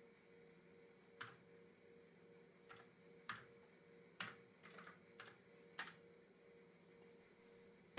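Faint clicks of keys on the Fairlight CMI IIx's alphanumeric keyboard: about eight scattered keystrokes, over a faint steady hum.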